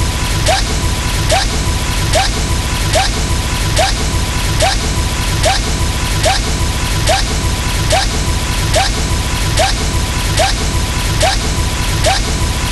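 A short explosion-like sound effect looped over and over: a crash with a quick rising chirp a little more than once a second, over a constant noisy rush and a steady tone.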